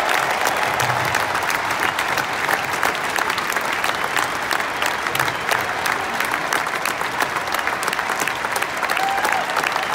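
Large stadium crowd applauding steadily, many hands clapping at once.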